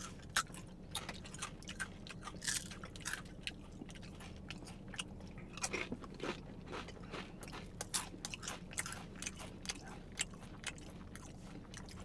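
Ghost pepper tortilla chips being bitten and chewed close by: a run of quick, irregular crunches.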